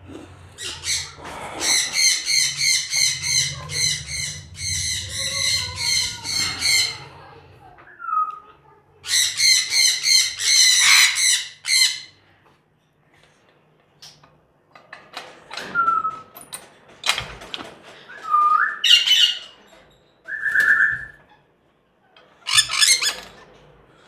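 Caged parrots screeching in long runs of harsh, rapid calls, followed by scattered calls and a few short whistled notes.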